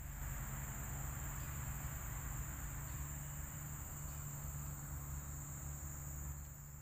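Insects chirring steadily in a high, unbroken tone from the riverside vegetation, over a low steady hum.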